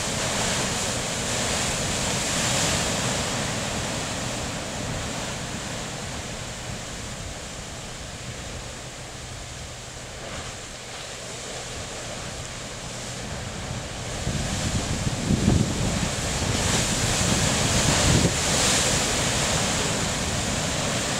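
Sea surf surging and crashing up a narrow lava-rock chasm, a steady rushing wash that swells louder about two-thirds of the way through. Wind buffets the microphone during that louder stretch.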